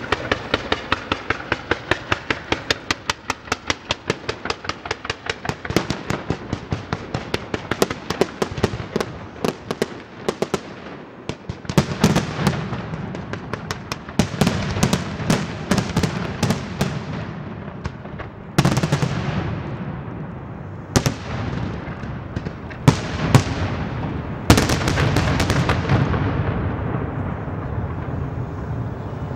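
Castillo fireworks display going off. About the first ten seconds hold a fast, evenly spaced run of sharp bangs. After that come heavier shell bursts over a continuous low rumble, with several louder single booms in the second half.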